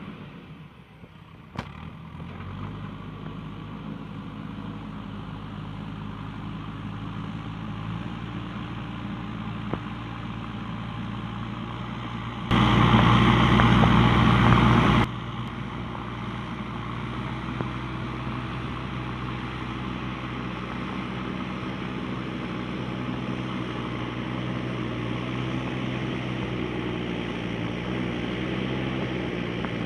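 Truck engine idling steadily, dubbed over toy trucks that have no motor of their own. About twelve seconds in, a much louder blast of the same engine sound cuts in for about two and a half seconds and stops abruptly.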